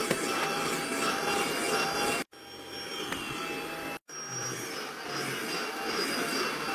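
Stick vacuum cleaner running over a rug: a steady motor whine over suction noise. The sound cuts off sharply twice, about two and four seconds in, and is quieter between the two cuts.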